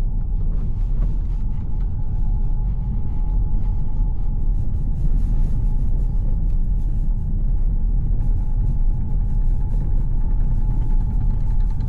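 VW T-Roc driving: a steady low rumble of engine and road noise. A faint, steady high tone runs through it from about two seconds in.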